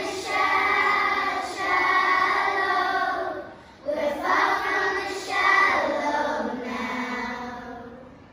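Children's choir singing: two sung phrases with a brief breath between them, ending on a long held note that fades away.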